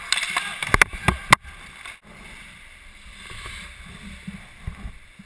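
Ice hockey play heard from a helmet camera on the ice: several sharp clacks of sticks and puck in the first second and a half over the scrape and hiss of skates. About two seconds in the sound cuts off abruptly to fainter rink noise.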